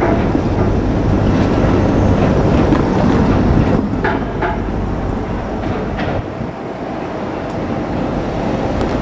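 JR Kyushu 787 series electric train rolling past, its wheels clattering on the rails. The rumble is loudest for the first three seconds or so and eases off after about four seconds as the train draws away.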